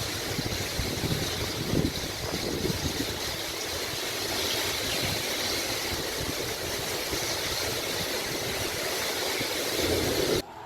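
Storm noise: a steady rushing hiss of heavy rain and running water, with an uneven low rumble underneath.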